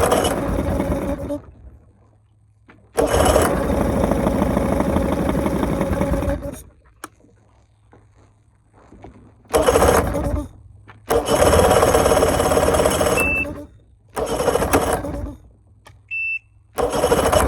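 Carbureted outboard motor starting and running in short bursts, about six times, cutting out sharply between them. A short high beep sounds twice near the end.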